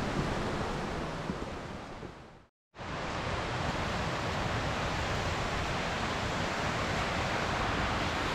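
Steady rushing outdoor noise with no distinct events. It fades out to silence about two and a half seconds in, then starts again abruptly at a similar level.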